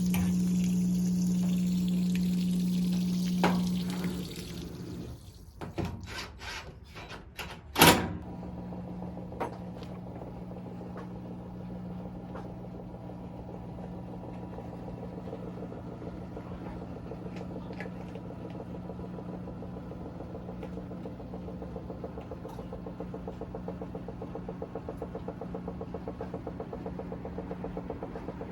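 Repaired drum washing machine running: water pumping with a steady hum until it stops about four seconds in, then a few clicks and one sharp loud click, after which the machine runs on with a quieter steady hum.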